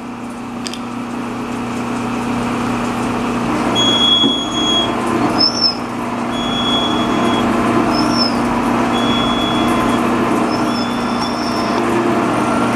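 Gould & Eberhardt metal shaper running, its ram stroking back and forth as the high-speed-steel toolbit takes cuts across an aluminium soft jaw, over a steady motor hum. A short high squeal comes with each stroke, about every two and a half seconds.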